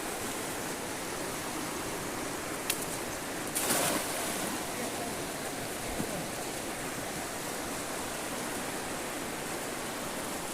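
Steady rush of a flowing river. A sharp click comes between two and three seconds in, a brief louder burst just before four seconds, and a small low thump about six seconds in.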